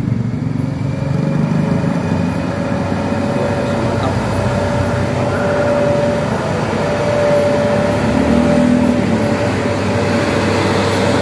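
Road vehicles running on the road, a dense steady engine and tyre noise with a steady whine through most of it.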